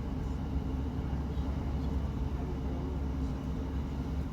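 Class 158 diesel multiple unit running: a steady low drone of its diesel engine and running gear, with no changes in pitch.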